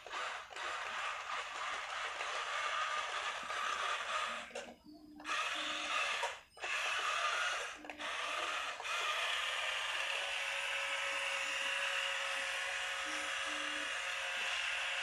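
Remote-control toy excavator's small electric motors and plastic gears whirring, starting and stopping several times as its arm and tracks are worked from the remote, then running steadily for the last several seconds.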